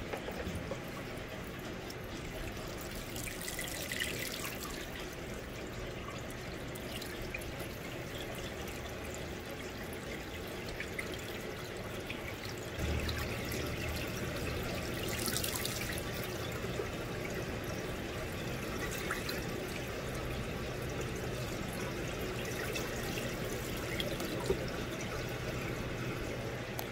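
Milky water-soluble-oil flood coolant pouring steadily from a surface grinder's coolant nozzles and washing across the magnetic chuck, with the grinding wheel stopped: a continuous trickling splash. A low hum joins it about thirteen seconds in.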